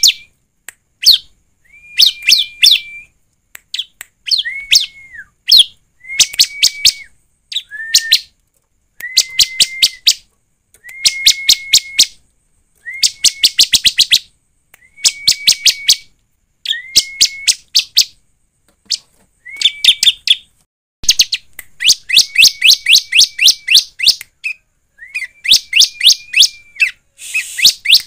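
Bar-winged prinia (ciblek) singing without a break, about one phrase a second. Each phrase is a quick run of sharp, chipping notes over a held high whistle.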